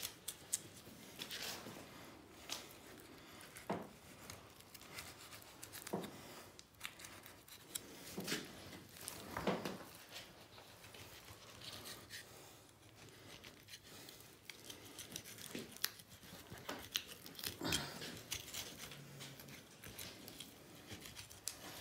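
Faint, irregular clicks, knocks and short rustles of things being handled, a few every several seconds.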